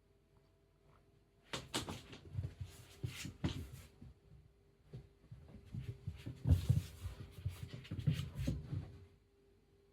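A cat running fast across the floor: an irregular run of paw thumps and knocks, starting about a second and a half in and stopping about a second before the end.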